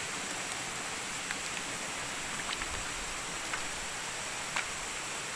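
Steady hiss of forest ambience, with a few faint, scattered snaps of footsteps on leaf litter and twigs.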